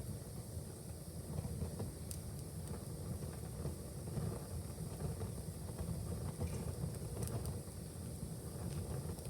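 Wood fire burning in a fireplace: a steady low rumble of flames with a few sharp crackles and pops scattered through it.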